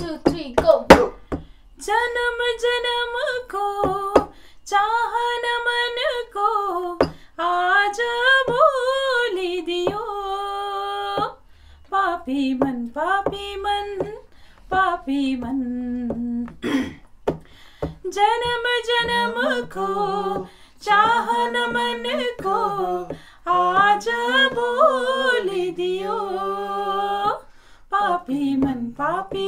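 Unaccompanied singing: a voice sings a slow song in long held, wavering phrases with short breaks between them, in a small room.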